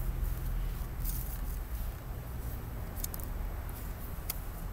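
Tissue paper rustling and crinkling in a few short bursts as it is pulled out of a new flat shoe, over a steady low rumble.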